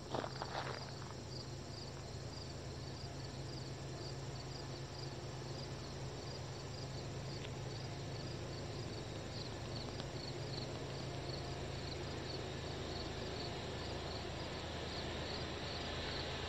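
Insects chirping in a steady rhythm, about two short high chirps a second, over a low steady rumble from a distant approaching freight train that slowly grows louder. A few short knocks in the first second.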